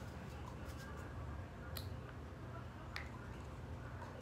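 Plastic glue bottles and caps being handled, with two faint clicks about two and three seconds in over a low steady hum.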